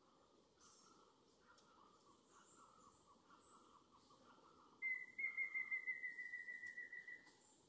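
Bird calls from the forest: a faint run of quick repeated notes, then about five seconds in a louder high trill held for some two and a half seconds, falling slightly in pitch.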